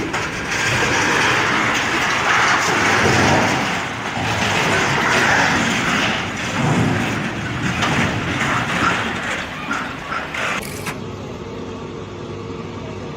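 A heavy vehicle running, a loud, rough noise that swells and ebbs. The character of the sound changes abruptly about eleven seconds in.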